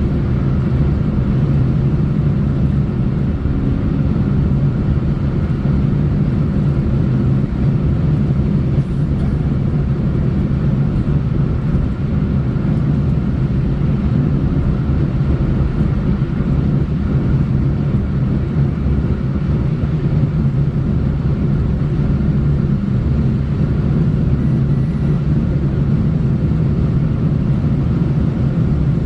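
Steady low road rumble of a car driving along, tyre and engine noise holding a constant drone without letting up.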